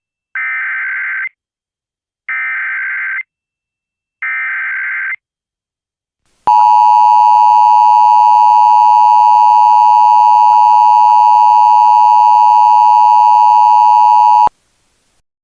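Emergency Alert System header and attention signal: three short warbling data bursts of about a second each, a second apart, then the steady attention tone held for about eight seconds and cut off abruptly. The tones mark the start of an emergency alert broadcast.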